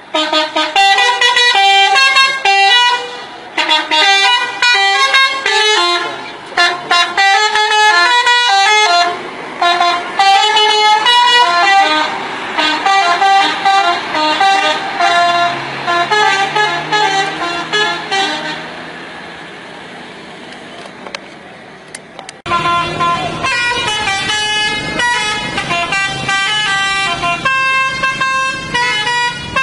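Indonesian bus 'telolet' musical horn: a multi-tone air horn playing quick melodic phrases, note after note. It goes quieter for a few seconds past the middle, then comes back in loud at about two-thirds of the way through.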